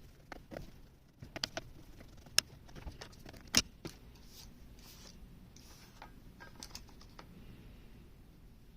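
Scattered small clicks and light metallic rattles, with two sharper clicks a few seconds in, from a T20 Torx driver and small screws being handled while the screws holding an orbital sander's backing pad are taken out.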